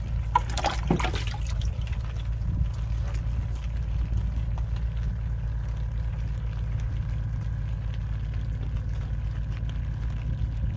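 Water sloshing and splashing in a plastic bucket as a fish is rinsed by hand, mostly in the first second or so, over a steady low rumble.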